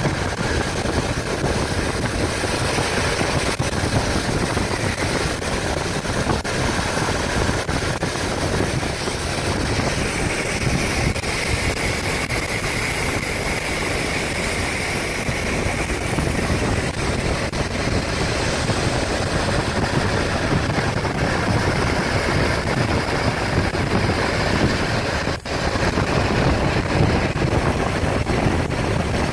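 Car driving along the highway, heard from inside the cabin: a steady rush of tyre and wind noise with the engine running beneath it.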